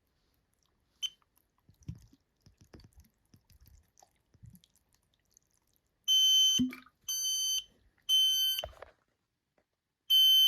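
Kidde KN-COSM-IBA combination smoke and carbon monoxide alarm sounding its test after the test button is pressed. After a few light handling clicks, it gives three loud, high beeps in the smoke-alarm temporal-three pattern, and the next round starts near the end.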